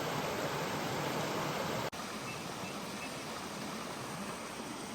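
Steady rush of flowing water from a stream or waterfall. It drops out for an instant about two seconds in, then carries on a little quieter.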